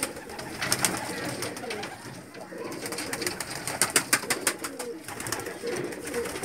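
Domestic pigeons cooing in a loft, with a run of sharp taps and clicks, densest from about three to five seconds in.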